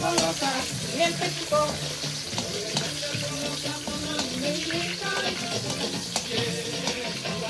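Mushrooms sizzling and crackling in hot oil in a pan as they are stir-fried and stirred.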